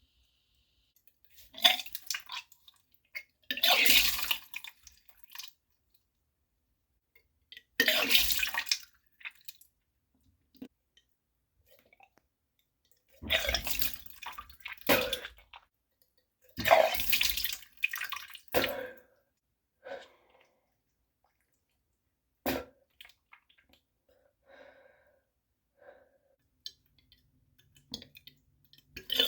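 A person vomiting in repeated bouts, liquid splashing down with each heave, from a stomach overfilled with food and soda. There are six or seven bouts of a second or two each, with quiet gaps between.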